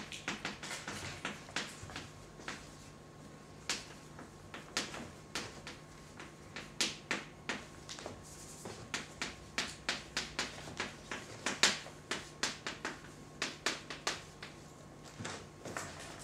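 Chalk tapping and scraping on a blackboard as a line of text is written: a long, irregular run of sharp taps, over a faint steady hum.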